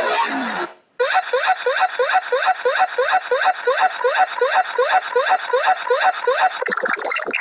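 A sound cuts out briefly, then a short electronic chirp repeats about four times a second, each one sweeping quickly upward; near the end it gives way to a different texture.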